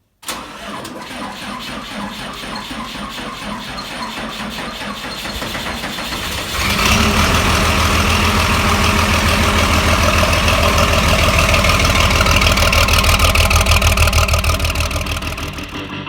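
An engine running with a fast, even firing beat. About six and a half seconds in it gets louder and heavier as it speeds up or takes on load, and it eases off slightly near the end.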